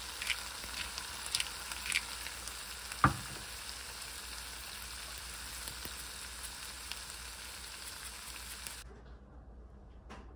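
Sausages and vegetables in a glossy sauce sizzling and crackling in a nonstick pan, with one sharp click about three seconds in. The sizzle cuts off near the end, leaving a quieter hum.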